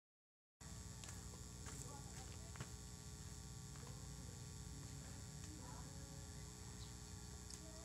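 Faint, steady electrical mains hum, with a few light clicks and knocks in the first seconds and a couple of short, high, faint chirps near the end.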